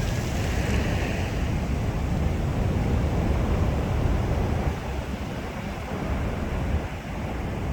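Sea surf washing on the shore, with wind buffeting the microphone as a low rumble underneath; it eases off a little about two-thirds of the way through.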